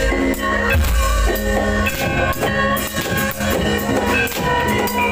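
Javanese gamelan music accompanying a kuda lumping dance: drumming with ringing metal percussion over a heavy bass.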